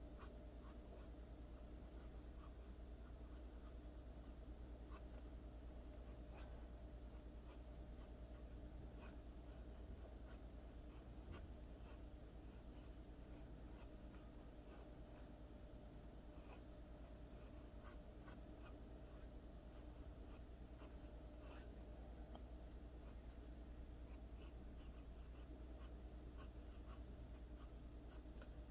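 Pencil lead scratching on drawing paper in many short, quick strokes, sketching hair: faint, with irregular small ticks as each stroke lands and lifts.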